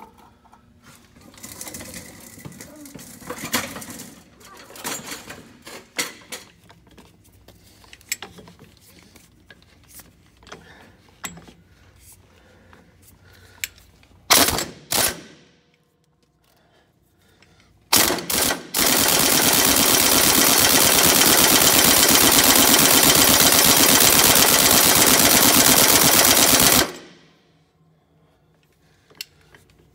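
1-inch-drive impact wrench on the yoke nut of a truck's power divider input: a few short trigger bursts about halfway through, then hammering steadily for about eight seconds before it cuts off, without breaking the nut loose. Before that, scattered clanks and clicks of tools being handled.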